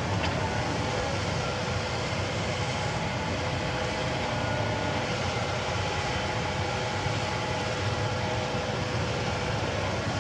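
Kobelco SK75 excavator's diesel engine running steadily while it works, a low drone with several steady higher tones over it.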